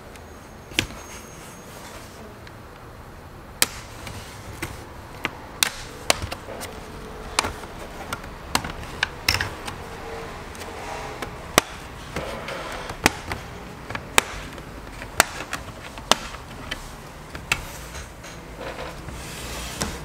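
Plastic snap clips of an HP 255 G5 laptop's top case popping loose as a plastic pry tool works along the seam: a dozen or more sharp clicks, irregularly spaced, with some scraping of the tool against the plastic in between.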